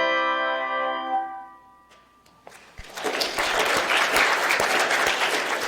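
A handbell choir's final chord rings as a cluster of steady bell tones, most of them cut off about a second in. After a brief hush, audience applause starts up and carries on steadily.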